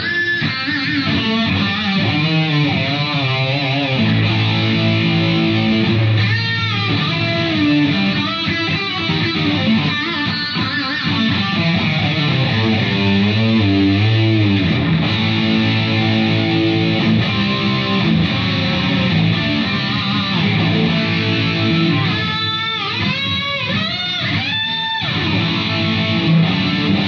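Gibson Les Paul Studio electric guitar played through an amp and picked up by camera microphones: sustained notes and chords with repeated string bends, clearest near the end. The bends test whether the guitar, newly fitted with a brass nut, holds its tuning.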